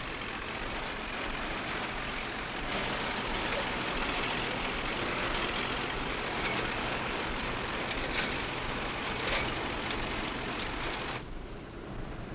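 Heavy truck running steadily with a rough, noisy engine sound on an old, hissy film soundtrack. The sound cuts off abruptly about eleven seconds in.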